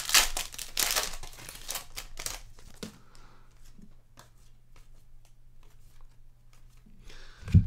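Crinkling and tearing of trading-card pack wrappers and the rustle of cards being handled, busiest in the first few seconds, then a few faint ticks and one sharp tap near the end.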